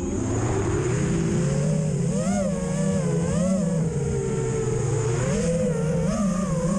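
An FPV racing quadcopter's brushless motors and propellers are whining, the pitch rising and falling with every throttle change as it flies low and fast. It is heard from the drone's onboard camera, with wind rush.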